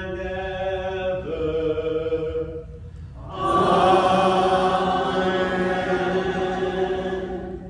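A man chanting the close of a Mass prayer on long held notes that step down once. After a short pause, a louder and fuller sung response follows, the congregation's Amen.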